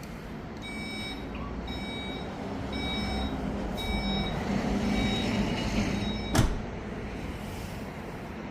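2024 Audi Q8's power tailgate closing: a warning beep sounds about once a second over a low motor hum, then a single sharp thump as the tailgate shuts.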